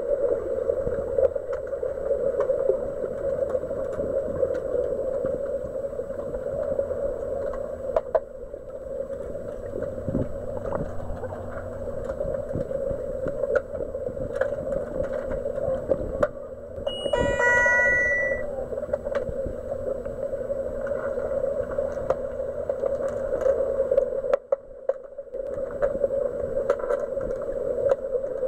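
Heard underwater during an underwater hockey game: a steady hum with scattered knocks, and about 17 seconds in, a brief electronic warbling signal from the referees' underwater sounder, the signal that stops play.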